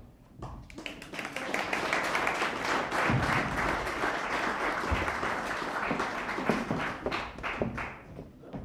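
Audience applauding, building up in the first second and thinning out near the end.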